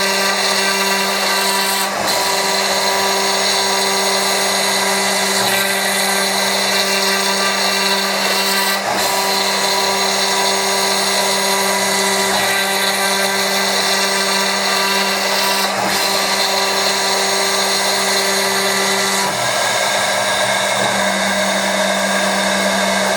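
CNC milling machine running with a 3 mm-radius ball-nose end mill: a steady, loud machine whine over a hiss. About 19 seconds in, one of its tones drops out and the sound shifts.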